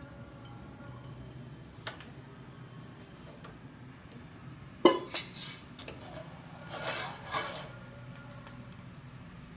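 Metal kitchenware clinking against a steel kadai on a stove: one sharp clink about five seconds in, followed by a few lighter clinks.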